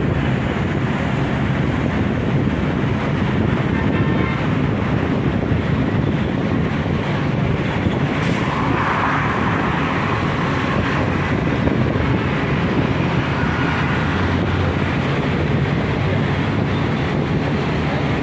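Steady road traffic noise heard while travelling in a vehicle, with wind on the microphone; the sound swells a little about halfway through.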